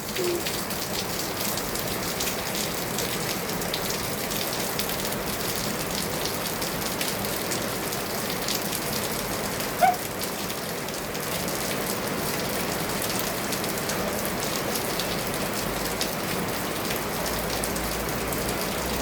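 Heavy rain falling steadily, a continuous hiss of rain on surfaces. One short sharp sound cuts through it about ten seconds in.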